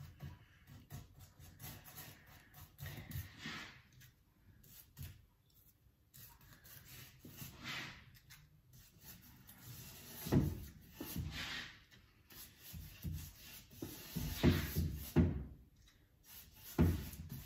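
Brush strokes of contact adhesive along wooden snooker cushion rails: irregular soft rubbing of bristles on wood, with a few dull knocks from handling the brush and glue pot, the loudest near the end.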